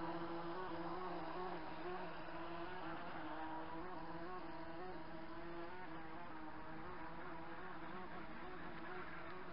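Radio-controlled model boat's motor running on the water: a steady buzzing tone that wavers slightly in pitch, easing a little in the first couple of seconds and then holding steady as the boat runs off.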